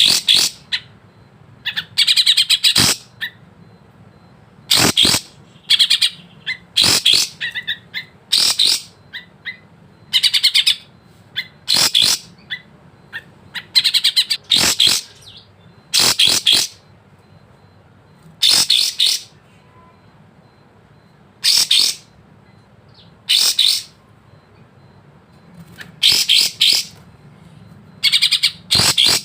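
Kapas tembak songbird singing in short, high-pitched, rapid chirping phrases, each under a second and repeated every second or two, over a faint low hum.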